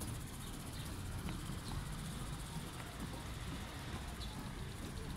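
Outdoor ambience: a steady low rumble, with a few faint, short high chirps scattered through it.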